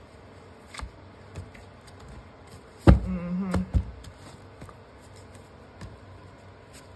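A deck of reading cards handled and shuffled in the hands, giving a few soft taps and clicks, the loudest about three seconds in.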